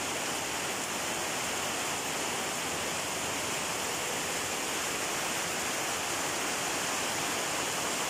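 Rain pouring steadily onto wet pavement: a dense, even hiss with no breaks.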